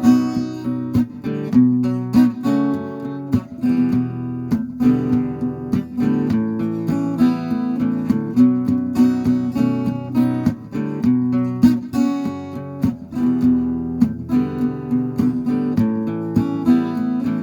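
Acoustic guitar strummed in an instrumental break, with no singing.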